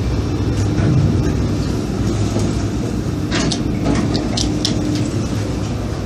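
Toshiba traction lift car travelling in its shaft, heard from inside the car: a steady low rumble with a faint hum, and a few sharp clicks a little past halfway.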